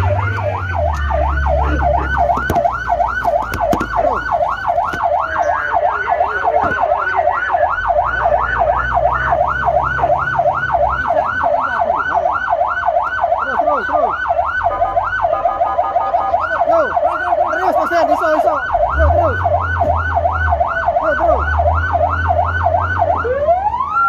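Fire truck's electronic siren in a fast yelp, about three rising-and-falling sweeps a second, heard from inside the cab, with the truck's engine rumbling in stretches. Near the end it switches to a single rising wail.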